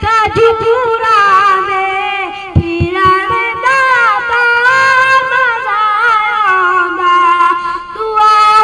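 A boy singing solo into a handheld microphone, holding long, wavering notes. His line breaks briefly about two and a half seconds in, with a few low bumps.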